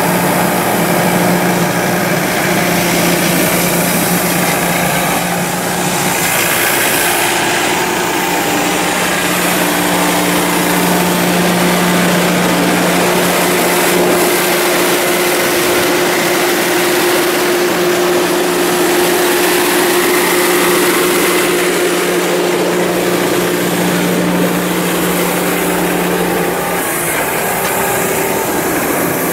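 Ditch Witch JT9 directional drill's engine running steadily, with a hum that shifts in pitch a few times as the machine works.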